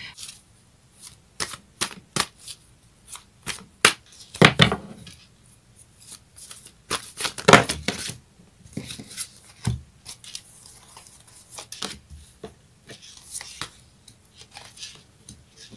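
A deck of tarot cards being shuffled by hand: an irregular run of quick snaps and rustles of cards, a few of them louder.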